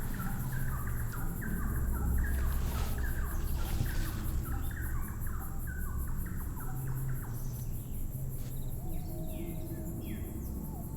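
Forest ambience of repeated short bird-like chirps and insect sounds over a low steady drone, the chirps thinning out after the first half.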